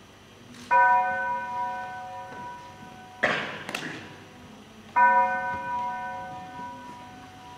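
A bell struck twice, about four seconds apart, each stroke ringing out with a clear pitch and fading over a couple of seconds. Between the strokes comes a short, sharp noisy crash.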